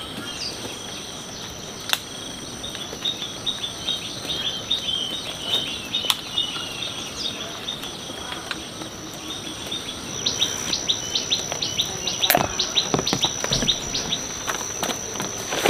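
Birds chirping over a steady, high insect drone, with a quick, regular run of chirps in the second half. A few sharp knocks stand out, the loudest about three-quarters of the way through.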